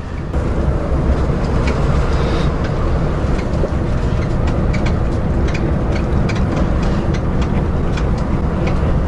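Motorhome driving along: a steady low engine and road rumble with scattered light clicks and rattles.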